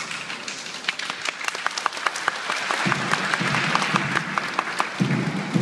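An audience applauding, many hands clapping at once. A lower sound joins the clapping about three seconds in.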